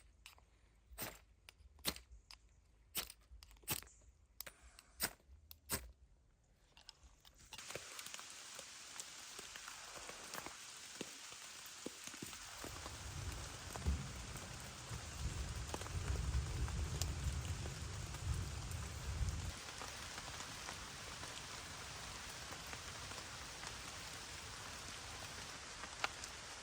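About a dozen crunching footsteps on the forest floor for the first seven seconds or so. Then steady rain starts suddenly, with a low rumble under it for several seconds midway.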